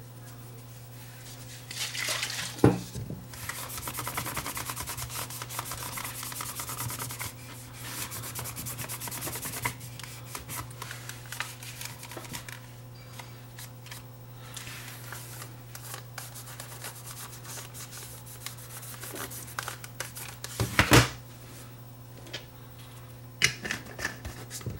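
A cloth rubbing briskly back and forth over the metal case of a Sony Walkman WM10 cassette player, polishing it, with two sharp knocks as the player is handled. A steady low hum runs underneath.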